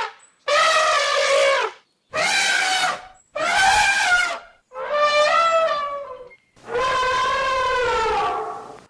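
Elephant trumpeting: five separate blasts of one to two seconds each, with short gaps between them.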